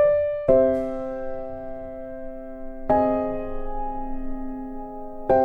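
Background music: slow chords struck a few seconds apart and left to ring.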